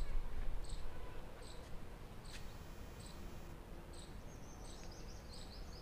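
Outdoor ambience: a short high chirp repeats about every three-quarters of a second, with a brief bird twitter about four seconds in. A low rumble on the microphone fades over the first second or two.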